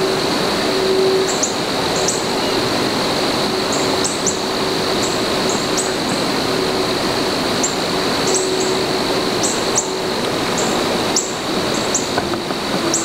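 Outdoor field ambience: short, high bird chirps, one or two a second, over a steady high-pitched drone and hiss, with a faint low hum that comes and goes.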